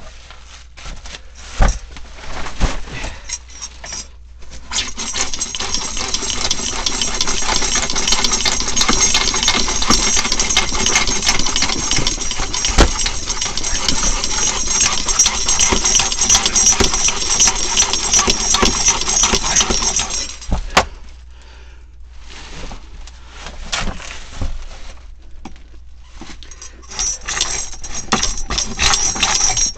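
Reciprocating saw cutting through PVC drain pipe, running steadily for about sixteen seconds after some knocks and handling clatter, then stopping and starting in short runs before cutting again near the end.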